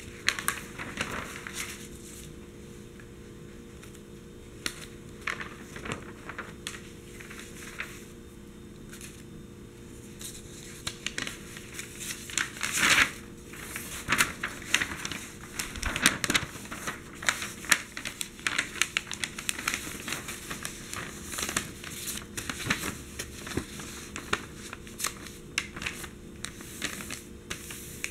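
Newsprint pages of a USA Today newspaper being handled and turned by hand: crinkling, rustling paper with sharp crackles. Only a few rustles in the first several seconds, then busy, continuous crackling from about ten seconds in as the big pages are flipped.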